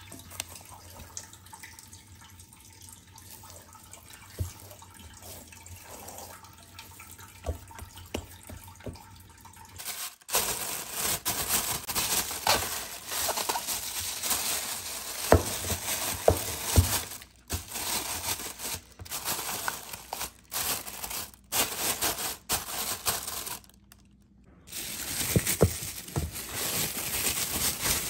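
Soft, wet squishing of hands kneading dough in an enamel bowl. About ten seconds in, it gives way to loud rustling and crinkling of a thin plastic bag covering the bowl as it is handled and pulled back, with a brief break near the end.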